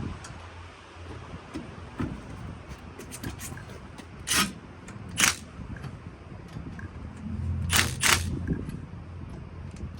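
Hand tools working on a car wheel during a tyre change: several sharp metallic clicks and clanks with small scrapes, four louder ones spread through the middle and later part, over a steady low hum.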